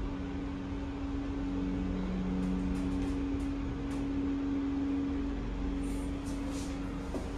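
Subway-station passenger elevator travelling after its doors close, the drive machinery running with a steady low two-tone hum and a few faint ticks near the end.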